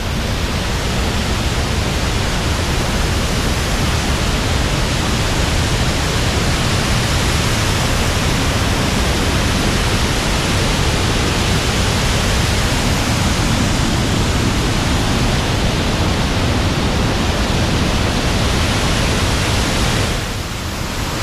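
Waterfall fed by heavy rain, its water rushing in a loud, steady, even roar close to the microphone.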